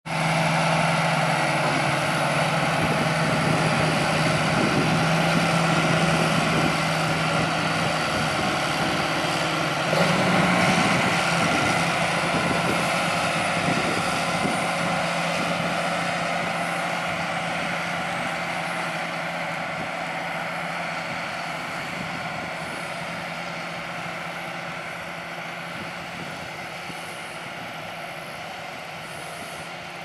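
John Deere 8330 tractor's diesel engine running steadily as the tractor pushes and packs corn silage on the pile, with a brief louder surge about a third of the way in. The engine grows gradually fainter through the second half.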